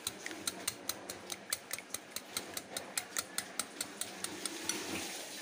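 Wire whisk beating eggs in a bowl, the wires clicking against the bowl in a quick, even rhythm of about five or six strokes a second.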